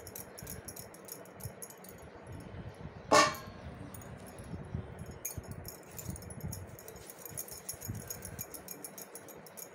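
Bangles jingling in quick little shakes as hands pinch and pull soft dough, with one ringing clang from a stainless steel pot about three seconds in as a dough ball goes into it.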